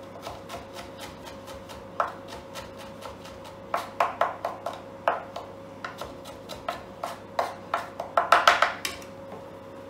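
Chef's knife chopping garlic on a plastic chopping board: a string of quick taps of the blade, with fast runs about four seconds in and just after eight seconds, the loudest near the end. A steady faint hum runs underneath.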